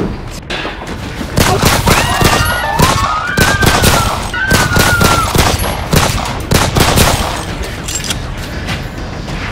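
A fusillade of gunshots: a dense string of shots starting about a second in and going on for some six seconds, with a high wavering cry over the middle of it.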